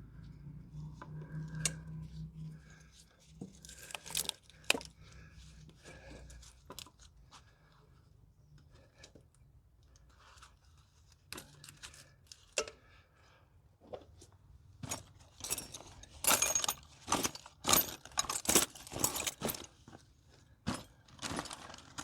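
Hand work on an engine's top end: scattered clicks, rattles and scraping of tools, plastic connectors and wiring being handled. Near the end comes a busy run of loud sharp clicks and rattles.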